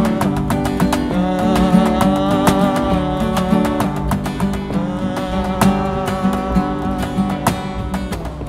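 Two acoustic guitars played live, strummed chords in an instrumental passage of a song, easing slightly in loudness toward the end.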